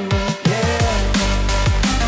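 Background electronic dance music with heavy bass: deep sweeping bass notes that fall in pitch, a short break early on, then the beat comes back in.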